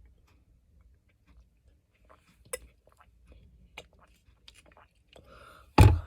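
A person drinking from a bottle: scattered small mouth clicks and swallows. A single loud thump near the end.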